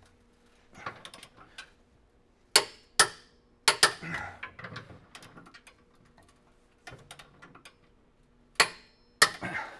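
Ratcheting torque wrench tightening the gooseneck hitch center section's vertical bolts to 150 foot-pounds. Soft ratchet clicks come as the handle swings back. Sharp clicks about three seconds in and again near the end mark the wrench reaching its set torque.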